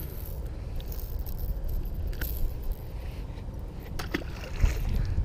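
Light metallic jingling and clicking of a jerkbait's treble hooks as a largemouth bass is unhooked by hand, over a steady low wind rumble on the microphone. A small splash comes about four seconds in as the bass drops back into the water.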